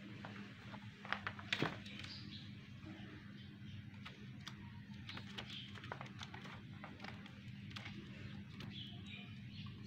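Two kittens play-fighting: light scuffles and knocks, loudest about one to one and a half seconds in, with short, faint high squeaks or chirps now and then over a steady low hum.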